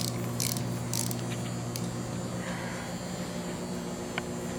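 A few last clicks of a 3/8-inch drive ratchet turning the drill grinder's chuck, about two a second in the first second, then a steady low electrical hum.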